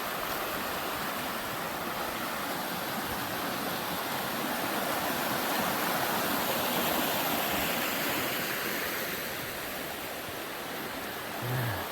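River running high after heavy rain, water rushing steadily around boulders; it swells slightly midway and eases near the end.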